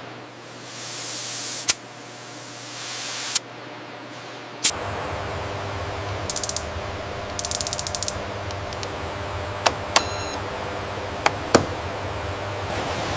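Pneumatic tool at work: a short hiss of air, then sharp clicks and two brief, rapid ratcheting rattles. A low steady hum sets in about a third of the way in.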